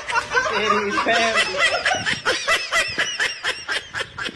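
A person laughing hard, a quick run of short 'ha' sounds about five a second.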